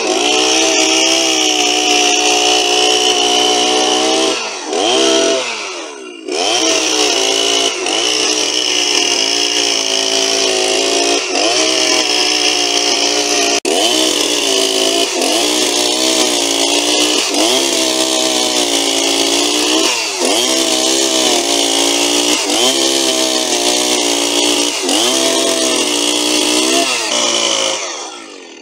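Husqvarna 61 two-stroke chainsaw running hard while ripping a wooden beam lengthwise, its pitch dipping and recovering about once a second. It drops off briefly a little after four seconds, and the engine falls away near the end.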